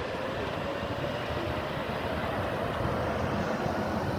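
Steady rumble of road traffic, with no sudden events.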